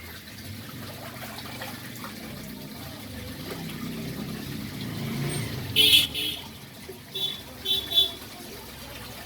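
Small battery-powered DC motor spinning the propeller of a homemade foam speed boat, buzzing steadily and swelling somewhat toward the middle. A few short high-pitched sounds come about six and eight seconds in.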